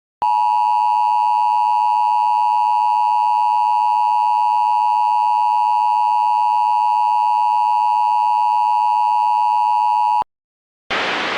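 Emergency Alert System attention signal: the steady two-tone alert (853 and 960 Hz sounded together) held unchanged for about ten seconds, cutting off abruptly near the end. A brief hiss follows just before the end, the lead-in to the spoken alert message.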